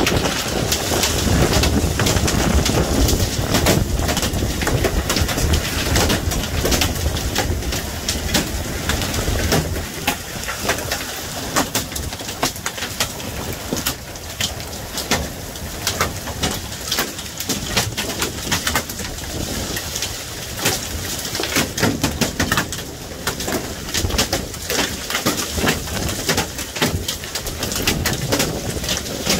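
Hailstorm with heavy rain: a steady hiss of rain with dense, irregular clicks of hailstones striking the ground and nearby objects. It is heavier and fuller for the first ten seconds, then eases off a little.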